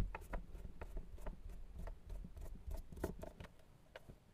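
Screwdriver unscrewing small screws from a plastic appliance housing, with the case being handled: faint, irregular clicks and scrapes, one slightly louder click at the start.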